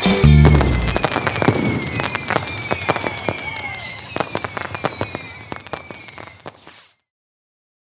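A fireworks display: a deep boom just after the start, then many overlapping bangs, pops and crackles. The sound fades gradually and cuts off suddenly about seven seconds in.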